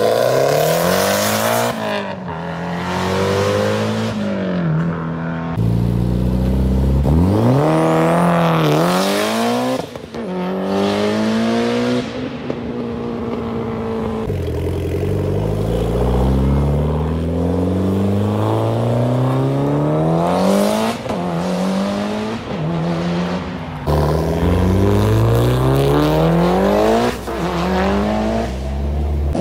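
Tuned sports-car engines accelerating hard, pitch climbing steeply through each gear and dropping back at every shift, over and over, with abrupt changes from one car run to the next.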